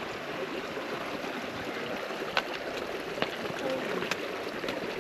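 Steady rush of running water, like a mountain stream, with a few sharp clicks of footsteps on the trail.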